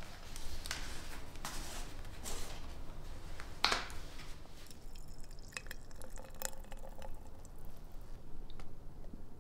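Small handling sounds: cloth rustling and light knocks, with a sharp click a little before halfway, then scattered clicks of paint jars and thick green paint dripping and pouring into a glass jar.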